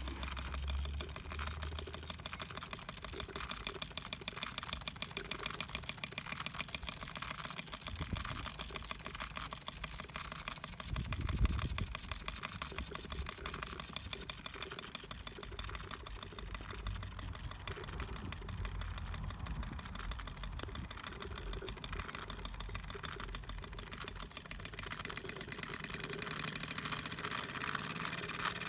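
Wilesco toy steam tractor's small steam engine running fast under steam, giving a rapid, even ticking chuff. There is one louder thump about eleven seconds in.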